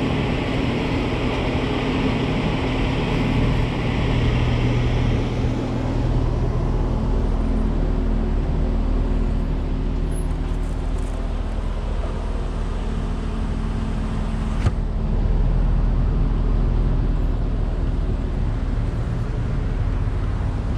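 Car engine running as the car pulls away from a drive-thru window and drives off slowly, a steady low hum. A hiss fades out about six seconds in, and there is a single sharp click a little before fifteen seconds.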